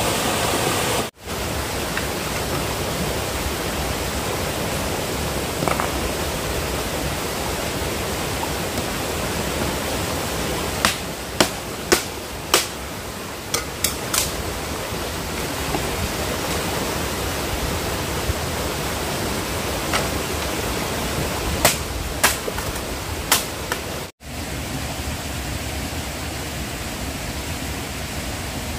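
A steady rushing noise with a few sharp clicks in two clusters, broken twice by brief drop-outs.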